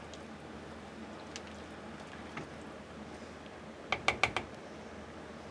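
Low, steady background hiss, then a quick run of about five small sharp clicks about four seconds in.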